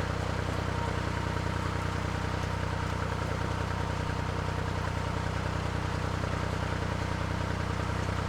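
Narrowboat's engine running steadily at cruising revs, an even low hum.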